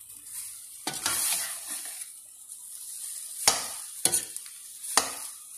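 Metal spatula stirring and scraping meat and vegetables in a stainless steel pot as they sauté with a steady sizzle. Several sharp scrapes against the pot, spaced about a second apart, the loudest just past the middle.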